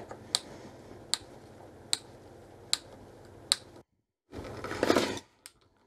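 Hand screwdriver driving a waxed screw through a wooden toggle block into a saw handle, with a sharp click about every 0.8 seconds, five times. After a brief break, about a second of scraping, louder than the clicks.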